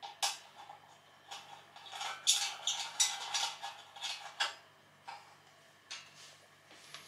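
Small metal clicks and scrapes of screws and a screwdriver against the steel leg of an electric grill stand as screws are set in by hand. The clicks are irregular, thickest from about two to four and a half seconds in.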